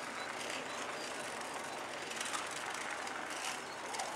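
Steady outdoor street ambience: an even rush of background noise with no distinct event standing out.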